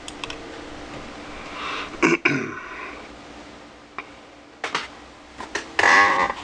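A man's throat noises: a short falling throaty sound about two seconds in and a louder one near the end, with a few light clicks in between.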